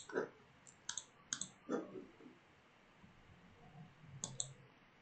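Faint computer mouse clicks: a few single clicks in the first second and a half, then a quick pair of clicks near the end.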